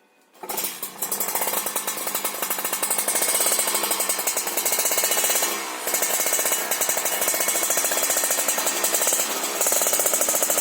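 Yamaha RX King motorcycle with a swapped-in Kawasaki Ninja engine, running and revving through an aftermarket exhaust with a crisp, rapid-firing note. It starts about half a second in and dips briefly near the middle.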